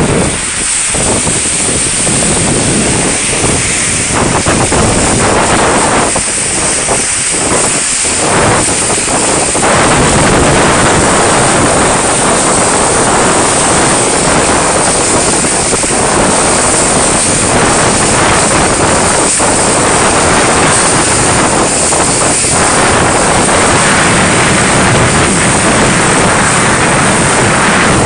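A vehicle driving through deep flood water on a street: a loud, steady rush of tyres splashing and spraying water, mixed with wind noise on the microphone. The sound is broken by short lulls at first and runs evenly from about a third of the way in.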